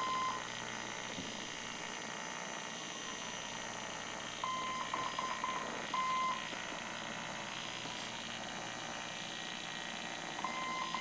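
EH Scott RCH Navy tube receiver hissing with static while picking up a Morse code signal: a steady-pitched beep keyed in long dashes and quick dots, in bursts about every six seconds.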